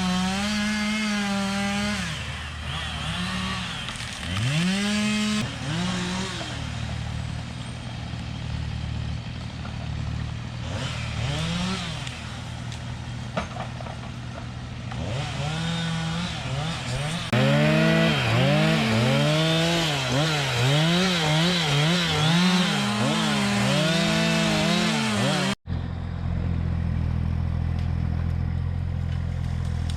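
A small engine revved up and down over and over, its pitch rising and falling in quick arches, most densely in the second half. After a sudden break near the end, a steadier, lower engine drone follows.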